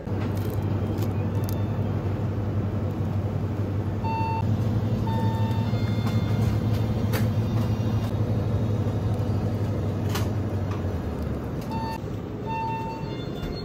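Convenience-store ambience: a steady low hum with short electronic beeps, each time a short tone followed by a longer one, heard twice, and a few light clicks.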